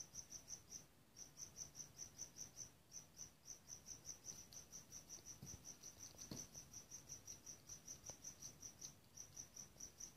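Faint insect chirping, likely a cricket: a steady run of short, high chirps about five a second, broken by brief pauses a few times.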